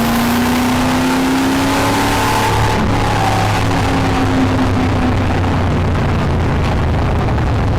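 1973 Chevrolet Corvette V8 running loud, its engine note rising slowly for the first few seconds, then dropping about three seconds in and settling steady.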